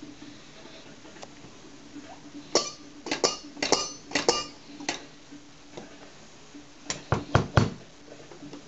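Metal kitchenware on a home-made kitchen drum kit struck in a loose run of clinking, ringing hits, two bursts of them, the second ending with a few heavier thuds.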